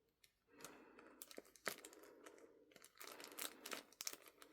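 Faint crinkling and rustling of paper being handled, in scattered small crackles that come more often over the last second and a half.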